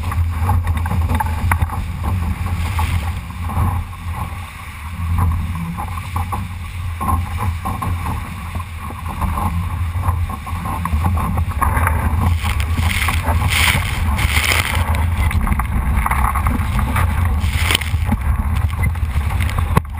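Wind buffeting the microphone of a GoPro aboard a Solo sailing dinghy, over the rush and splash of water against the hull as the boat sails. From about the middle onward, bursts of splashing spray come in over the steady rumble.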